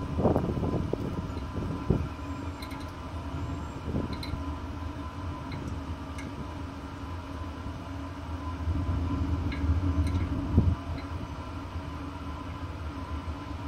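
OG Grilla Grill pellet smoker during start-up: the combustion fan runs with a steady hum while the fire in the firepot gives a low rumble that swells between about eight and eleven seconds in. A few short knocks, the loudest about ten and a half seconds in.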